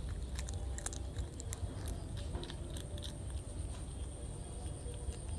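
Kitten chewing small boiled fish close to the microphone: a run of small wet clicks and smacks, thickest in the first few seconds, over a steady low hum.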